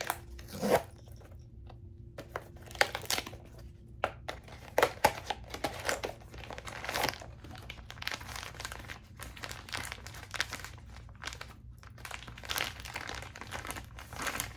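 Plastic and paper packaging of a toy blind box being torn and crinkled open by hand, in a run of irregular rustles and sharp crackles.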